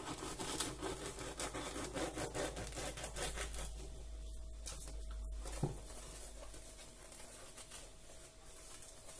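A knife sawing through the crust of a round Algerian bread, a quick run of dry rasping strokes that fades after about three seconds, then a single soft knock a little past the middle.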